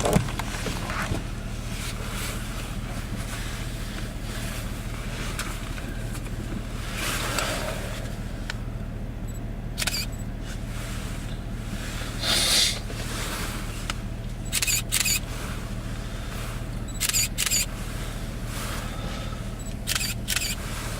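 Truck engine idling with a steady low hum. Brief rushes of noise come through several times, from wind gusts in the blizzard.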